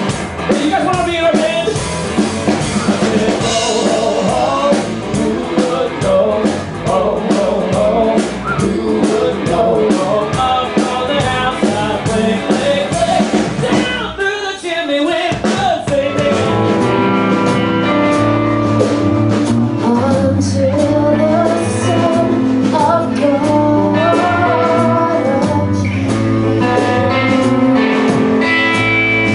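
A band playing a blues-rock song: singing over guitar and drums with a steady beat. About halfway through, the singing drops out briefly and gives way to held chords over the beat.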